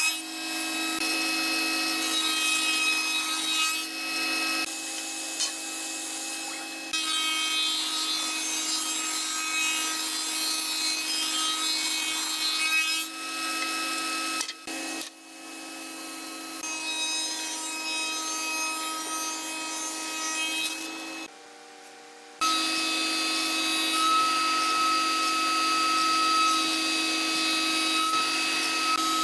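Spindle shaper running with a steady whine while its cutter shapes a moulding profile along wooden strips fed past it by a roller power feeder. The sound breaks off briefly about halfway through and drops low for about a second a little later before resuming.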